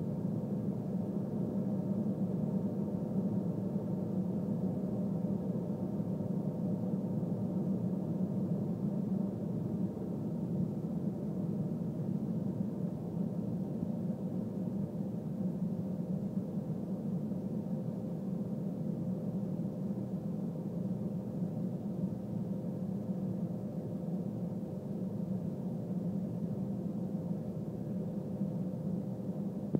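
Airliner cabin noise in cruise flight: a steady deep drone of jet engines and airflow over the fuselage, with a thin steady hum running through it.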